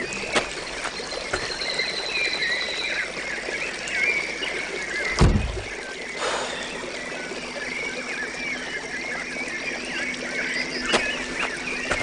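Outdoor ambience of small birds chirping continuously, with a single dull thump about five seconds in.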